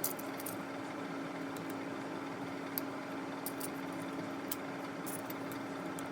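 Steady hum of a running motor, a constant drone on one low tone with a few faint clicks.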